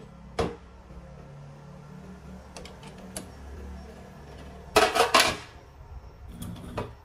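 Metal clanks and rattles from handling the homemade grinder slide: the angle grinder's roller-bearing carriage is knocked and slid along its square steel tube rail while the grinder is switched off. There are scattered knocks, with the loudest burst of clatter about five seconds in.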